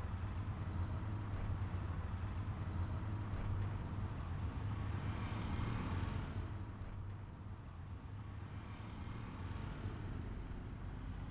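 Auto-rickshaw running through city traffic, heard from inside its passenger cab: a steady low engine hum under road and traffic noise, which eases a little past the middle.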